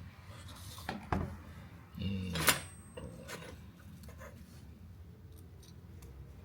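Hands working small metal parts: a knock about a second in, then a short scraping squeak and a sharp metallic click a little after two seconds, and a softer click shortly after.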